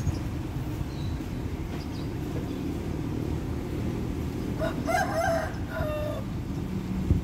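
A rooster crowing once about five seconds in, in two parts, over a steady low rumble.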